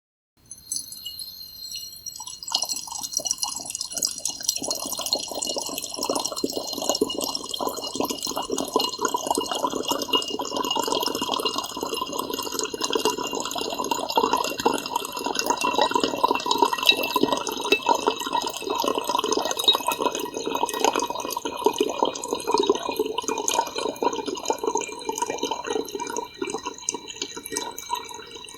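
Thin stream of water trickling and splashing into a vase, a steady run of small splashes with a bright ringing over it.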